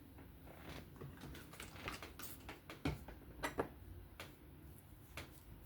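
Irregular light clicks and taps of small metal parts and a screwdriver as a folding knife is taken apart, with a few sharper clicks about three seconds in.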